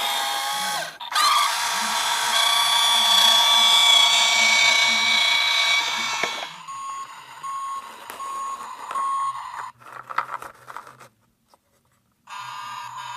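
Electronic sound effects from battery-powered toy vehicles pressed by hand. A buzzy electronic sound with many tones plays for about six seconds, then come four short, evenly spaced beeps. After a brief silence another electronic sound starts near the end.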